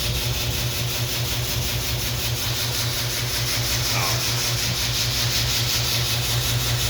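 Electric motor running with a steady low hum that pulses several times a second, over a constant hiss.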